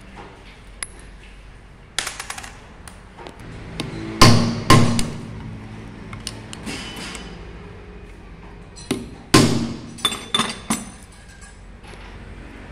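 Metal hand tools knocking and clinking against the metal housing of a diesel injection pump as it is taken apart, in separate sharp strikes with a short ring. The loudest two come about four seconds in, with another cluster around nine to eleven seconds.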